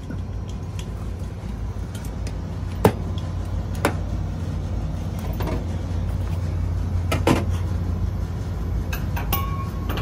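A steady low machine hum, broken by scattered sharp clicks and taps: one about three seconds in, another a second later, a double click around seven seconds, and several more near the end.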